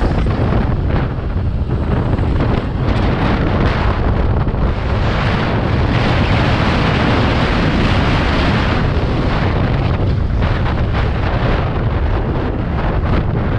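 Wind rushing over the microphone of a scooter riding at speed, with the scooter's road noise beneath. The rush grows louder toward the middle, as the speed reaches about 90 km/h, and eases off near the end.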